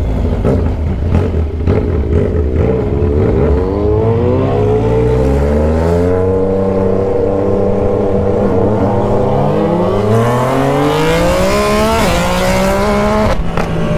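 Yamaha Tracer 900's inline three-cylinder engine, fitted with a bare straight-through exhaust pipe, accelerating through the gears. The revs climb and drop back with each gear change, several times over.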